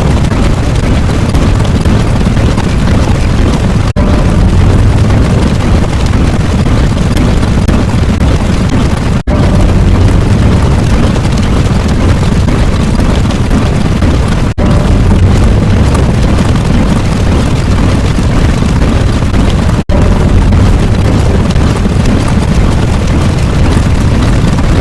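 Loud, continuous rumbling explosion sound effect, played as a loop. It cuts out for an instant and restarts about every five seconds.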